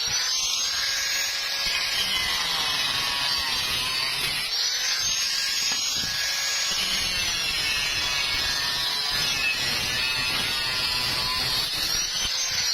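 A power tool's electric motor running steadily with a high, hissing whine. Its pitch sags and recovers a few times, as if the tool is being loaded and eased off.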